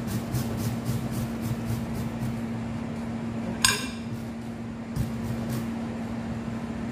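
Squash being grated on a stainless steel box grater: a run of quick rasping strokes, with a sharp metallic clink about halfway through and a dull knock on the cutting board a little later. A steady low hum runs underneath.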